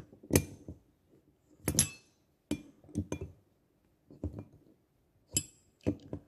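Metal clinks of a Torx driver being fitted into and turning the cylinder bolts on a Stihl MS 150 TC chainsaw engine as they are tightened in a cross pattern: about ten short, sharp clicks at uneven intervals.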